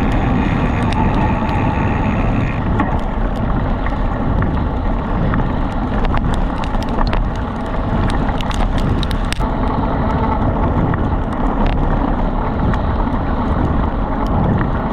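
Bike rolling fast on a dirt road while two dogs pull it in a bikejor run: steady rushing tyre and wind noise on the bike-mounted microphone, with scattered sharp clicks and rattles. A high steady whine is heard for the first two and a half seconds, then stops.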